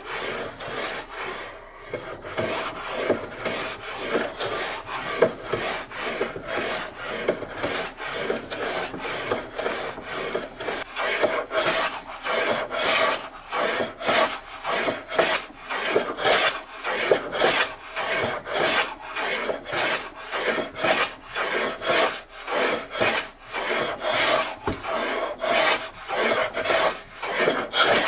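Steel scraper rasping back and forth across the old wooden body of an 1890s Edward Preston wooden jack plane, cleaning the surface. Strokes become quicker and more distinct about halfway through, roughly two a second.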